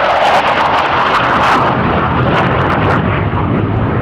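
Hawker Hunter Mk 58 jet, with its Rolls-Royce Avon turbojet, roaring past on a high-speed arrival pass, loud and continuous, with a falling pitch early on and easing slightly near the end.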